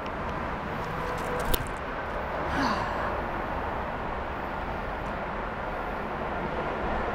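Steady outdoor background noise, a constant hiss and rumble, with a single brief click about one and a half seconds in, around the moment a disc golf drive is thrown from the tee.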